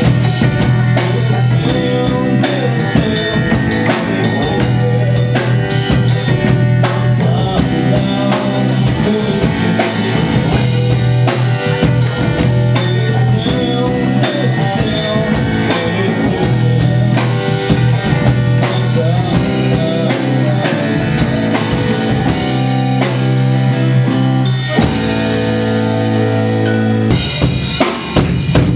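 Live band playing a rock song, with the drum kit to the fore over a steady bass line; the music changes near the end.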